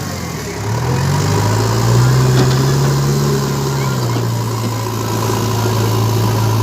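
Heavy diesel engine running, its pitch rising about a second in, held higher for a few seconds, then dropping back to a steady lower speed around four seconds in.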